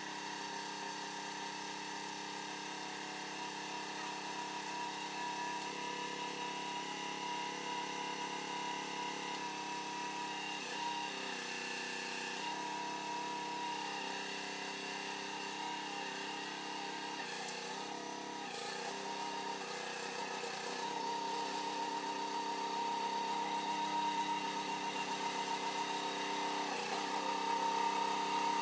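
A machine's engine running steadily just after starting, its pitch dipping briefly a few times in the middle, and a little louder toward the end.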